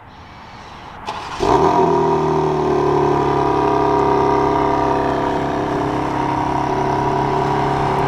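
2024 BMW M4 Competition's 3-litre twin-turbo inline-six, remote-started, heard through its quad-tip exhaust: it fires about a second and a half in with a brief rev flare, then settles into a steady idle.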